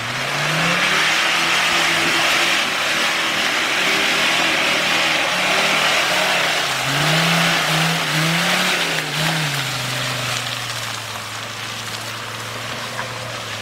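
Mercedes-Benz G-Class 4x4's engine working under load on a muddy off-road climb, the revs swinging up and down several times around the middle, then settling to a steadier, quieter drone near the end as the vehicle pulls away.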